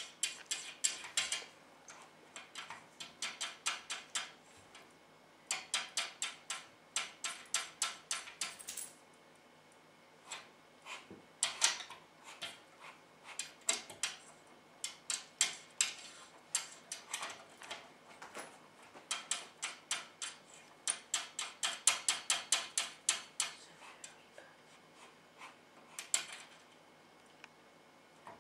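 A ring of metal keys hanging from a glass cabinet door's lock, jangling and clicking against the lock and the glass as a cat paws at them. The sound comes in repeated bursts of rapid clicks, with short pauses between.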